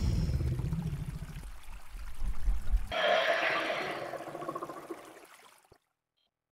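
Sound effects for an animated logo: a low rumble for about three seconds, then a sudden change to a watery pouring, gushing sound that fades away.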